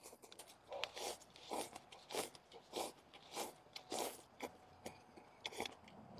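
Close-up chewing of fried stinky tofu, with wet, crunchy mouth sounds in a steady rhythm of about one and a half chews a second.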